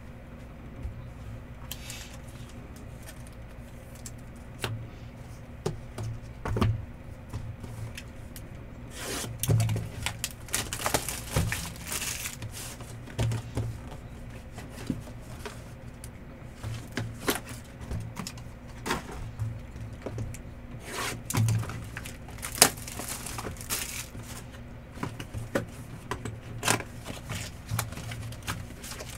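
Trading cards and their packaging being handled at a table: irregular clicks, taps and short rustles as cards are slid, stacked and sorted, over a steady low hum.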